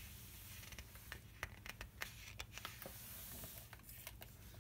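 Faint paper rustling and scattered soft clicks of a picture book's page being turned by hand, over a steady low room hum.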